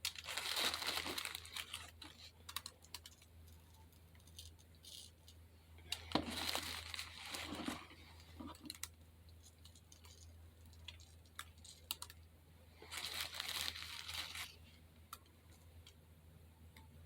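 Hands working soft craft material, with rustling, crinkling and tearing noises in three bursts and scattered small clicks and taps between them.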